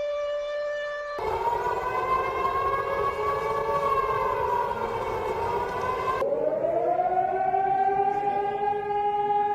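Recorded warning siren sounds spliced one after another: a held siren tone, then about a second in a louder, rougher siren whose pitch sways slowly up and down, then about six seconds in another siren that winds up in pitch and holds.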